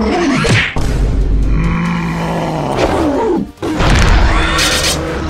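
Cartoon fight sound effects over background music: a falling whoosh and then a heavy, deep impact about a second in, and another whoosh and ground-smashing impact a little past three and a half seconds.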